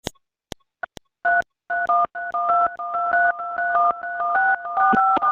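Touch-tone telephone dialing: a few short clicks, then from about a second in a rapid run of DTMF key tones, about four a second, as a phone number is keyed in.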